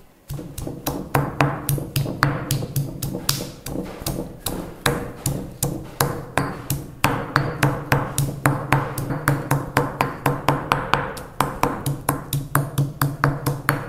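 Stone pestle pounding ginger and garlic in a stone mortar: rapid, steady knocks of stone on stone, about three to four a second.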